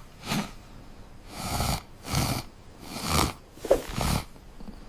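Cartoon snoring: a run of breathy snores, in and out, roughly one every half second to a second.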